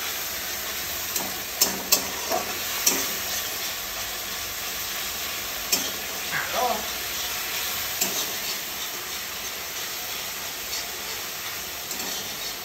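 Food sizzling as it fries in a pan, with a utensil stirring it and clinking against the pan now and then, a few sharp knocks in the first few seconds, and a short scraping squeal about two and a half and six and a half seconds in.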